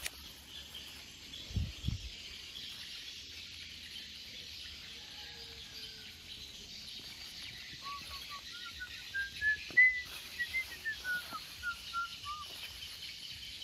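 A bird sings a run of short whistled notes that climb in pitch and then step back down, over a steady high hiss of forest insects. A couple of low thumps come about two seconds in.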